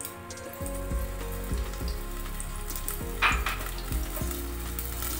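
Cooking oil sizzling in a hot kadai, a steady crackling hiss, with a brief louder burst about three seconds in.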